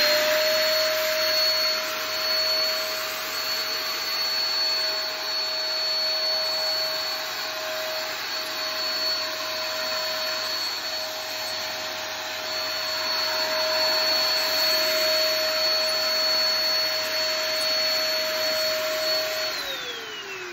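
Electric 5-litre ULV cold fogger running, its blower motor giving a steady high whine over a rush of air as it sprays water mist. Near the end the motor is switched off and winds down with a falling whine.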